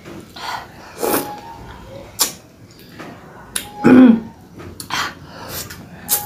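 Close-miked eating sounds: lip smacks and wet mouth clicks while chewing fish pulled from a cooked fish head by hand. About four seconds in comes a short, loud vocal sound from the eater, falling in pitch.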